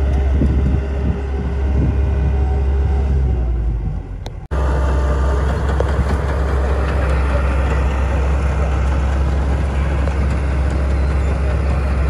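A heavy engine running steadily with a deep, even hum. It breaks off abruptly about four and a half seconds in and then carries on steady.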